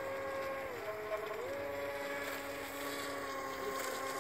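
Small brushless electric motors and propellers of an RC air boat whining steadily. The pitch drops briefly about a second in and then comes back up. After that a second, lower tone runs alongside the first: the two motors are at different speeds, as in differential-thrust steering.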